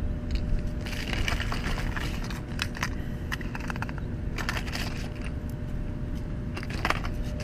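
Plastic lure packages and a zip-top bag crinkling and clicking as they are handled, over a steady low rumble.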